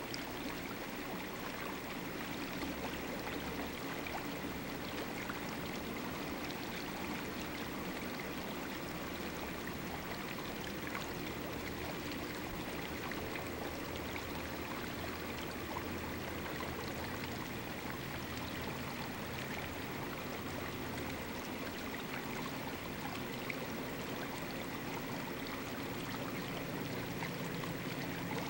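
Diesel freight locomotives of an approaching empty coal train, a steady distant low engine drone under an even hiss.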